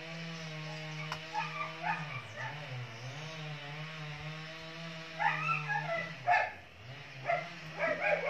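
A dog barking and yipping in short bursts from about five seconds in, over a steady low hum that dips in pitch twice.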